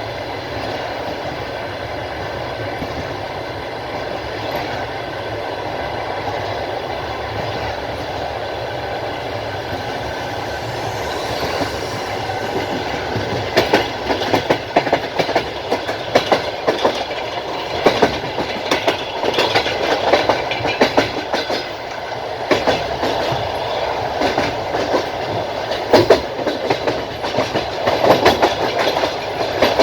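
Passenger train coach running along the track, heard from the carriage window: a steady rumble, then from about twelve seconds in the wheels clack sharply and irregularly over the rail joints.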